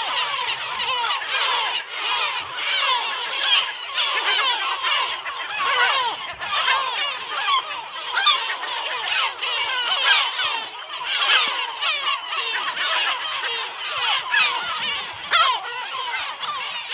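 A large colony of gulls calling continuously, many birds at once, their short rising and falling calls overlapping in a dense chorus.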